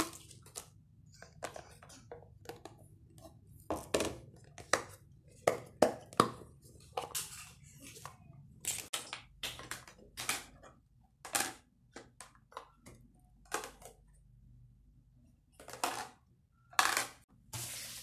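Clear plastic food containers with clip-lock lids being handled, pulled apart and stacked: irregular clicks, knocks and plastic clatter, with a short lull near the end.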